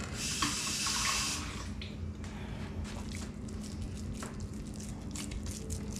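Hands pressing and patting raw ground-beef meatloaf in a glass baking dish: soft squishing with scattered small taps against the glass. A brief hissing rush fills the first second and a half.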